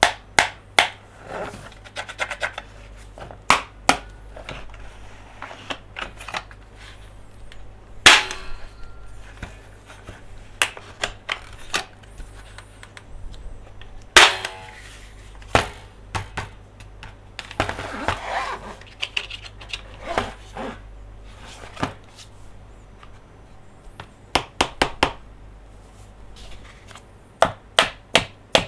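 Close-up handling of plastic toy monster trucks and playset pieces: irregular sharp clicks and taps, two louder snaps about 8 and 14 seconds in, and a stretch of scratchy rubbing around 18 seconds.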